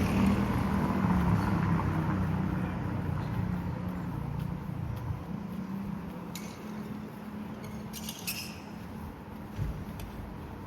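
A motor vehicle engine passing and fading away over the first few seconds, leaving a steady outdoor background with a few light clinks past the middle.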